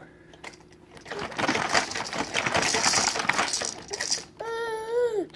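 Baby grinding his teeth: a rapid grating crackle of fine clicks for about three seconds, then a short pitched vocal squeal that drops in pitch as it ends.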